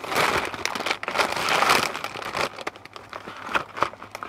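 Rustling and crinkling of sarees being handled and unfolded, a dense run of crackly rustles that is loudest in the first two seconds.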